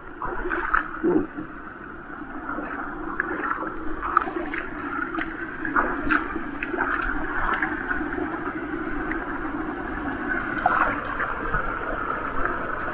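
Shallow, rocky stream running with a steady gurgle, and bare feet wading through it: short, irregular splashes and sloshes, thickest in the first half.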